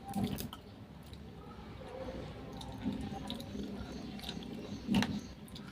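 Close-up eating sounds of seafood in garlic butter sauce: wet chewing and smacking, with a few sharper clicks, the loudest near the end.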